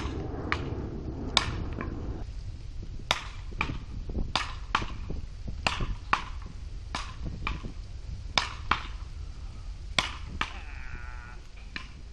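A ball struck back and forth with beach paddle rackets in a rally: a string of sharp cracks, one roughly every half second to second.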